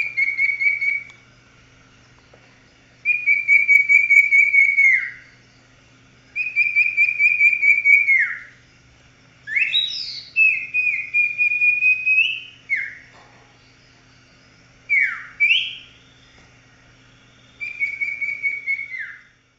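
Common iora (cipoh) singing: phrases of rapid trilled whistles held on one pitch, most ending in a quick downward slide, with a few sharp rising and falling sweeps in between.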